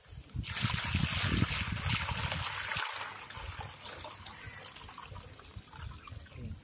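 Water pouring from a plastic bucket into a plastic tub, a splashing pour that starts about half a second in and eases off over the last few seconds as the stream thins.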